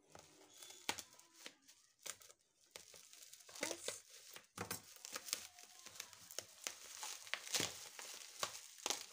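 Plastic bubble wrap crinkling and rustling as hands pull it off a boxed tripod, in irregular crackles that get busier about three and a half seconds in.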